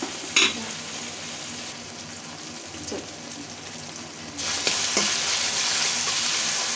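Chopped tomatoes, onions and green chillies sizzling in oil in a metal kadhai while a spatula stirs and scrapes them, with a few light knocks of the spatula on the pan. The sizzle turns clearly louder about four and a half seconds in, as the vegetables are stirred.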